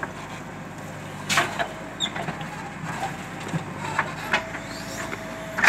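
JCB 3DX backhoe loader's diesel engine running steadily while the loaded bucket swings over and dumps into a steel tractor trolley, with sharp metal knocks and clatters about a second and a half in, around four seconds, and loudest near the end. A steady whine joins about four and a half seconds in.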